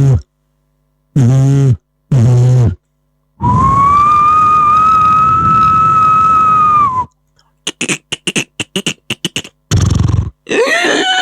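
A beatboxer imitating a series of sound effects with his mouth: short buzzing voiced blasts, then a long steady whistling tone over a hiss for about four seconds, then a quick run of clicks, and near the end a warbling sound that slides up and down in pitch.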